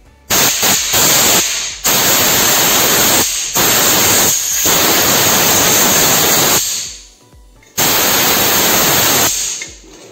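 Compressed-air blow gun blasting at a motorcycle engine's shift-shaft oil-seal housing to dry off gasoline used for cleaning. A loud, even hiss comes in several long blasts with short breaks.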